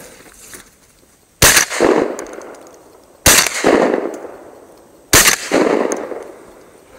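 Shotgun fired three times, about two seconds apart, each shot followed by a long echo fading away.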